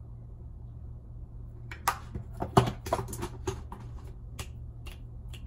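A steady low hum, then about two seconds in a run of around a dozen irregular sharp clicks and taps as small makeup items are handled and set down.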